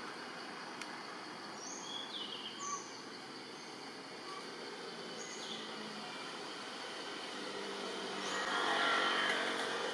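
Outdoor forest ambience: a steady background hiss with a few short, high bird chirps, and a broad swell of noise that builds and peaks near the end.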